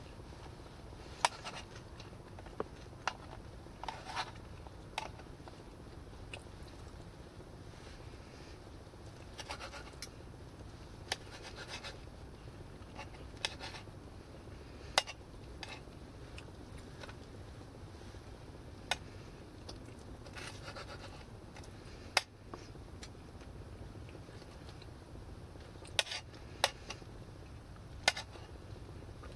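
Knife and fork clinking and scraping against a pan of food while someone eats: sharp, irregular clicks every second or few, with a few short scrapes in between, over a low steady hum.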